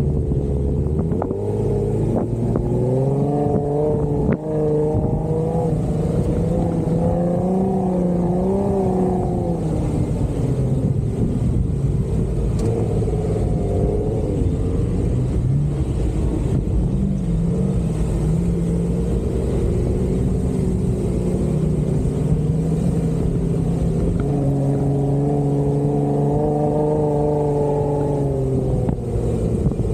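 Jeep Wrangler engine under load off-road, its pitch rising and falling again and again as the throttle opens and closes, then held higher for a few seconds near the end.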